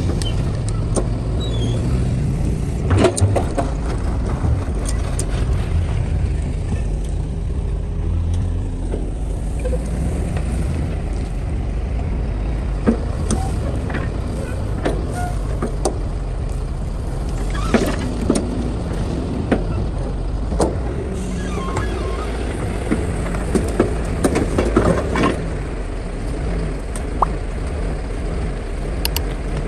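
Excavator's diesel engine running steadily under load, with scattered sharp knocks and clanks from the machine at work.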